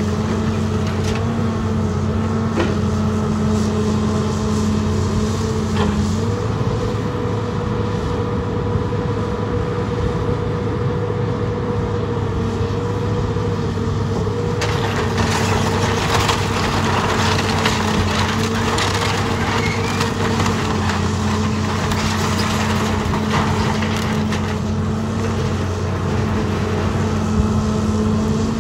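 John Deere 270C LC tracked excavator's diesel engine running steadily while its bucket crushes and splinters wood framing and sheet-metal roofing. The crunching is densest about halfway through.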